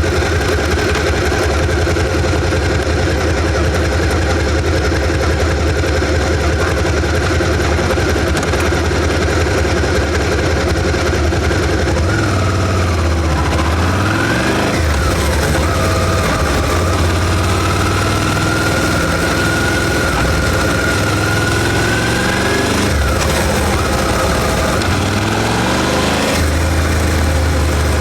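Suzuki SV650's 645 cc V-twin engine with its stock exhaust, running at low speed. The note holds steady for the first dozen seconds, then the revs rise and fall a few times before settling steady again near the end.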